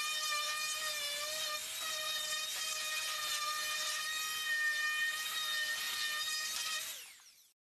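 Electric random orbital sander running against a solid-pine cabinet door, a steady high whine with the hiss of the pad on the wood. The sound fades out near the end.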